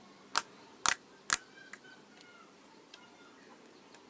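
Avalanche slime being squeezed and worked in the hands, giving sharp popping clicks as air pockets burst: three loud pops in the first second and a half, then a few softer ones.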